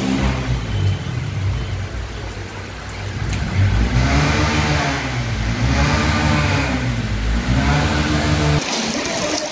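Dramatic background music: a low, droning synth bed with repeated swelling, rising-and-falling tones. It cuts off suddenly near the end, leaving a hiss of water.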